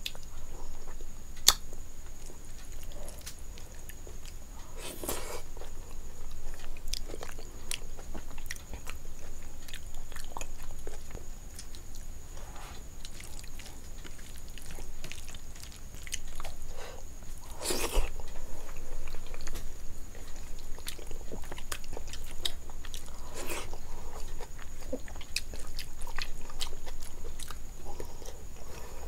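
Close-miked eating by hand: fingers squishing and mixing rice with curry on a plate, and wet chewing and mouth clicks, with a few louder sharp clicks along the way.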